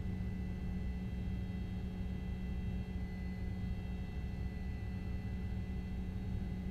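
A steady low drone with a constant hum, overlaid by faint thin high-pitched steady tones; nothing starts or stops.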